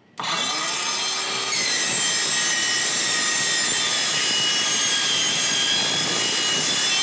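INGCO 20V cordless circular saw starts about a quarter second in with a rising whine as it spins up. From about a second and a half in it cuts steel, giving a steady, loud, high-pitched screech.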